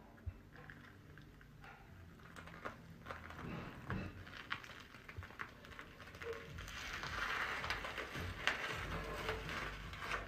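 A special-effects makeup prosthetic being peeled off skin and hair: crackling, sticky peeling with scattered small clicks, growing louder past the middle.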